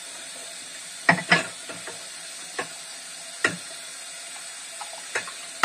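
Dishes clinking and knocking during washing-up by hand: about seven separate knocks over a faint steady hiss.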